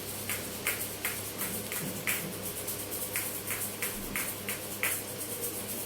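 Damaru (hand-shaken pellet drum) being twisted back and forth, its knotted bead beating the drum heads in a steady run of sharp strikes, about three a second.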